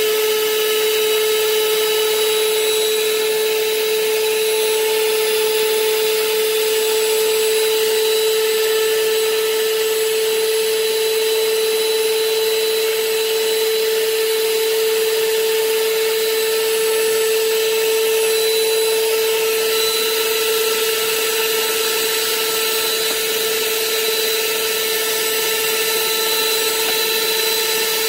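Stand mixer's electric motor running at one steady speed: a constant whine over a hiss.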